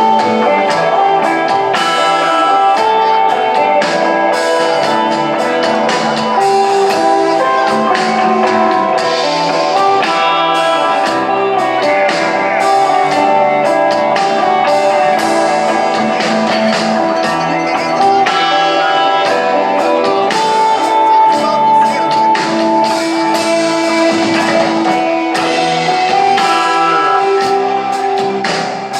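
Live rock band playing: electric guitar lines ring out over steady drum hits, at a constant loud level with little deep bass.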